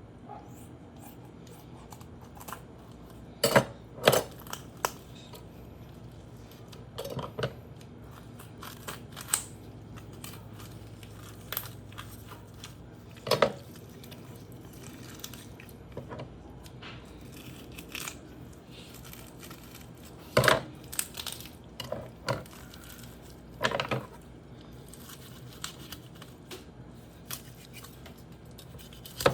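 A knife and a raw chicken being worked on a cutting board: about a dozen scattered sharp knocks and clatters of the blade and board, with softer tearing and handling between them.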